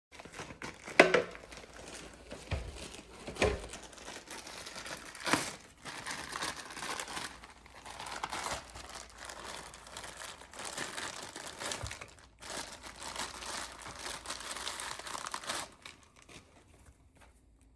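Packaging crinkling and rustling as the contents of a TV box are unpacked. A few sharp knocks come in the first six seconds, then the crinkling goes on steadily until it stops near the end.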